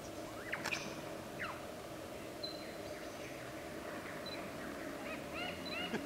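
Male superb lyrebird singing during its tail-fanned display: scattered short whistled sweeps and brief high piping notes, then a quick run of hooked notes near the end.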